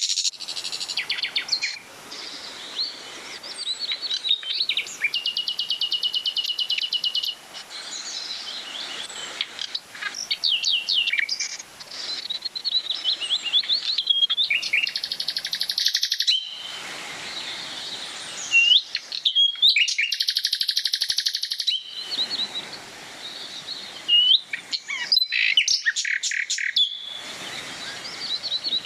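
Songbirds singing in the trees: a busy mix of sweeping chirps and fast trills, with longer rapid trills about 5 to 7 seconds in, around 15 seconds in and from about 19 to 22 seconds in.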